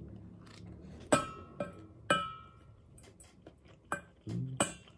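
Metal spoon clinking against a bowl while eating, several sharp ringing clinks about a second apart.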